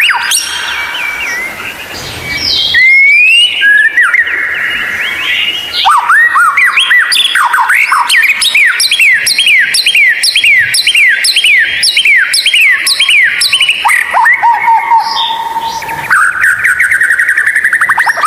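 White-rumped shama singing a varied song. Clear whistled glides and buzzy phrases lead into a long run of quick, repeated downslurred notes at about two a second, and a buzzy trill comes near the end.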